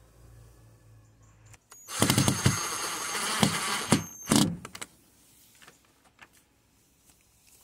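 Ryobi 18 V cordless drill-driver driving a screw through the solar-panel bracket into the trailer roof: the motor runs with a steady high whine for about two seconds, starting about two seconds in, then gives one short final burst as the screw seats.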